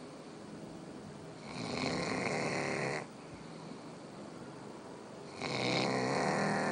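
A dog snoring loudly in two long snores: the first ends abruptly about three seconds in, and the second starts about five and a half seconds in, with quieter breathing between.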